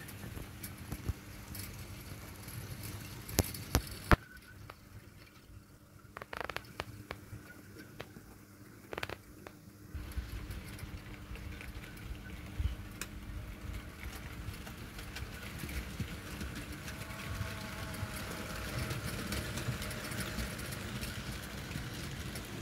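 A couple of sharp clicks about three and four seconds in, then a model train of the OO gauge Bachmann LMS 10001 diesel locomotive pulling Pullman coaches on the track, its running noise growing louder with a rising hum over the last few seconds as it comes near.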